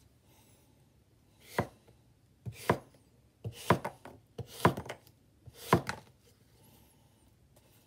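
Goko Kogetsu 300 mm SK carbon steel gyuto slicing through an apple half, five cuts about a second apart. Each stroke crunches through the apple flesh and ends with a sharp knock of the edge on the cutting board.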